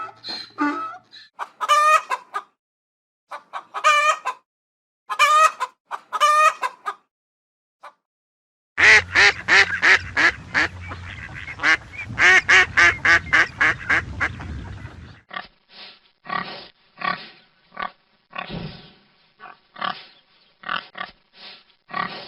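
Domestic fowl calling in several spliced recordings: a few separate drawn-out calls, then a dense run of rapid calls over a low hum, then a string of short repeated clucks.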